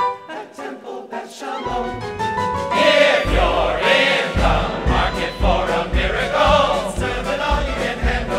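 Men's chorus singing with instrumental accompaniment and a steady low beat. Short sharp hits come first, and about three seconds in the full choir swells in loudly.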